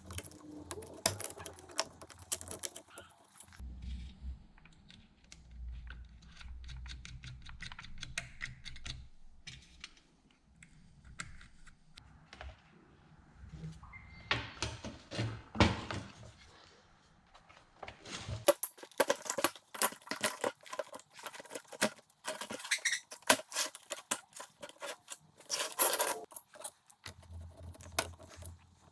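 Hands and small tools working on a chainsaw's parts: irregular clicking, tapping and rattling of metal and plastic, in quick clusters that are busiest in the second half.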